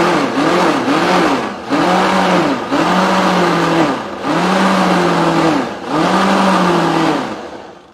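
Blender motor pulsed on and off while blending a thick beet-green pesto: three quick pulses, then four longer ones of about a second each, the motor speeding up and slowing down with every pulse. The last pulse winds down near the end.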